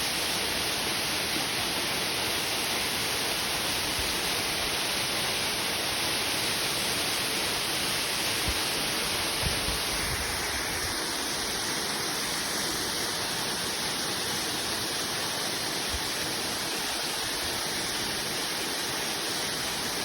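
Waterfall rushing, a steady even roar of falling water. A few soft low thumps about halfway through.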